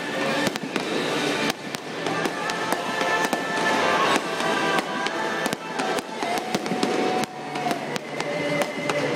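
Fireworks display: many shells bursting and crackling in quick succession, over music playing throughout.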